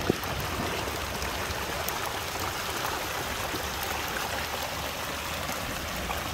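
Rain-swollen muddy runoff stream rushing and splashing over rocks in small cascades, a steady flow of water.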